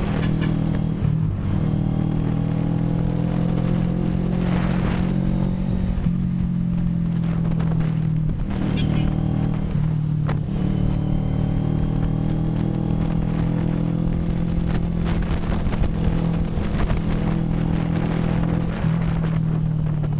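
CFMoto 400NK motorcycle's parallel-twin engine running steadily while riding, its pitch shifting briefly a few times.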